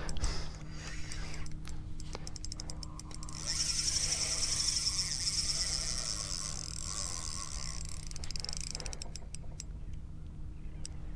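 Fishing reel's drag ticking rapidly, then buzzing steadily for about four seconds, then ticking again: a hooked flathead pulling line against the drag. A faint steady low hum runs underneath.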